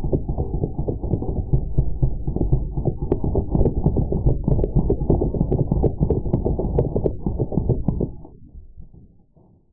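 Drozd Blackbird CO2 BB machine gun firing full-auto, its audio slowed with the slow-motion picture into a deep, rapid pulsing of shots. The pulsing cuts off about eight seconds in and dies away.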